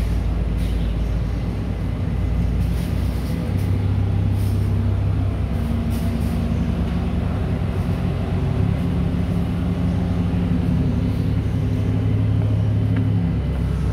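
Steady low machinery drone with a deep hum that comes in a few seconds in and drops out shortly before the end.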